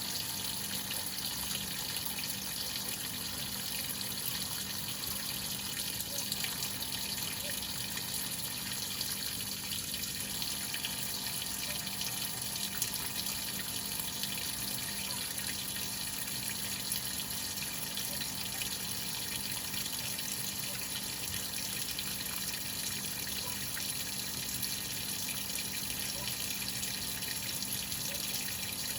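Whirlpool top-load washing machine filling, water pouring steadily into the tub with an even hiss and a faint steady hum underneath.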